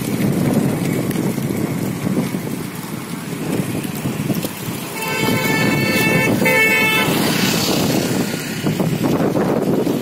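Gusty wind buffeting the microphone, with road traffic going by. About five seconds in, a vehicle horn sounds two blasts, a longer one and then a short one.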